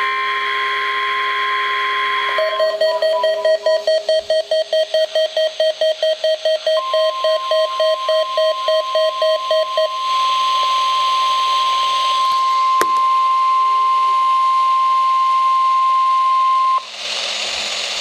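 Midland NOAA weather radio receiving a Required Weekly Test. The warbling digital header ends, then the receiver's own alert beeps about four times a second for several seconds. Overlapping the beeps, the steady 1050 Hz warning alarm tone holds for about ten seconds, over hiss from the broadcast, and a burst of data noise follows near the end.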